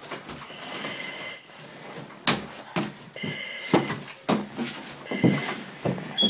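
A firefighter breathing through an SCBA mask and regulator: a whistling hiss comes back every second or two. Sharp knocks and bumps of gear and the window frame come in between, the loudest several near the middle and end.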